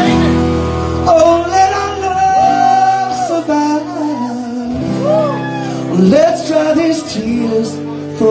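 Live band playing a song: a male lead voice sings long, wavering notes over acoustic guitar, bass, drums and piano.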